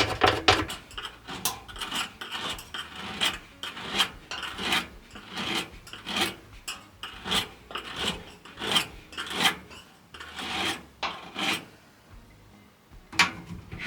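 Scrubbing a part of a clothes dryer by hand: repeated rasping back-and-forth strokes, about two a second, that die away near the end with one last stroke.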